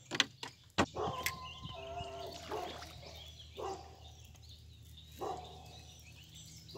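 Two or three sharp knocks against the canoe in the first second, then four or five short, pitched animal calls spaced about a second apart.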